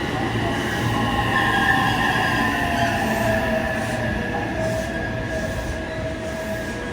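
Electric train moving along the platform, a low rumble under several whining tones that slowly fall in pitch, fading a little near the end.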